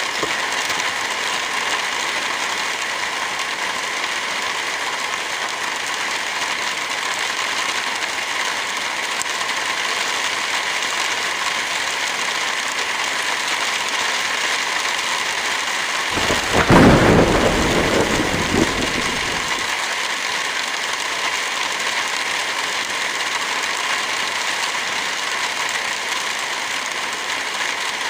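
Heavy rain falling in a steady, even hiss. A little over halfway through, a low rumble swells up for about three seconds and fades back into the rain.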